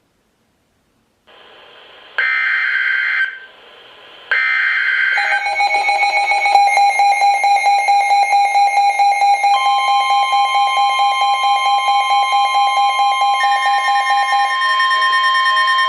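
Emergency Alert System signal, loud: two short screeching digital data bursts, then a steady electronic alert tone with a fast, even pulsing beat. About nine and a half seconds in, a second, higher steady tone joins it.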